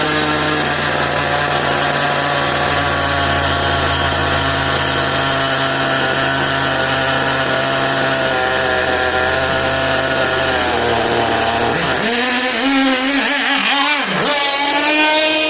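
Small nitro model engine running steadily at a fast idle, its pitch sagging a little, then revving up and down over the last few seconds.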